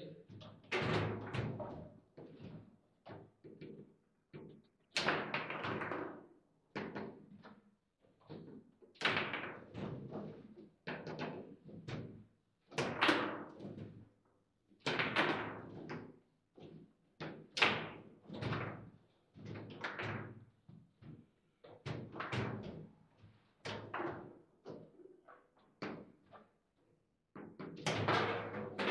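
Foosball being played hard: the ball cracking against the figures and table walls, and the rods banging and clacking as they are spun and slammed. The knocks come in quick bursts with short lulls between rallies.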